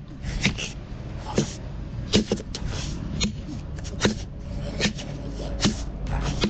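A run of sharp knocks, about one every second, over a low steady rumble.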